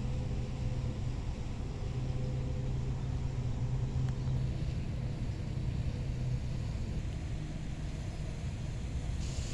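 Steady low rumble with a constant low hum, like a running engine, that drops away about six seconds in.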